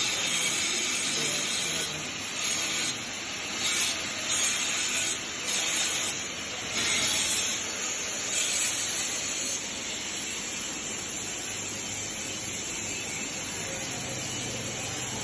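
Steady hiss of a TIG (GTAW) welding arc on steel pipe, louder in irregular surges for the first half, then even.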